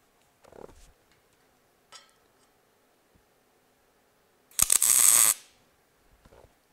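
A single short welding tack on the steel headache rack's gusset: a bit under a second of crackling, buzzing arc noise, locking in the third tack once the rack is square. Before it come a faint knock and a light metal clink.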